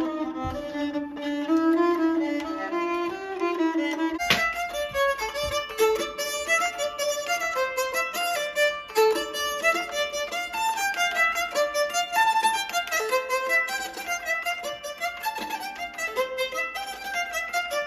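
Nyckelharpa (Swedish keyed fiddle) being bowed, playing a melody of quickly changing notes. There is a brief knock about four seconds in.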